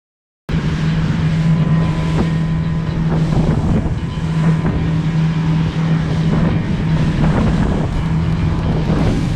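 Boat engine running steadily under way, with a strong low hum, and heavy wind buffeting the microphone. It starts abruptly about half a second in.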